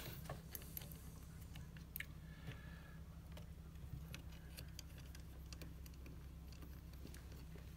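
Faint, scattered clicks and small knocks of a metal pedal-extender bracket and its wedge being handled and fitted onto a brake pedal, over a low steady hum.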